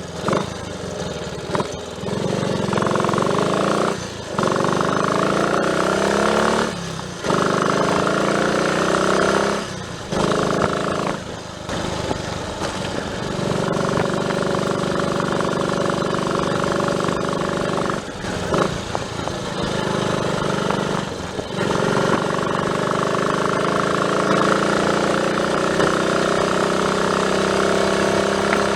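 Triumph Tiger Cub's single-cylinder four-stroke engine under way, accelerating up through the gears: the pitch rises several times with short breaks at the gear changes, then holds a steadier note with a couple of brief dips near the middle.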